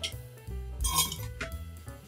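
Background instrumental music with a bass line and drum beat. A bright clink stands out about a second in.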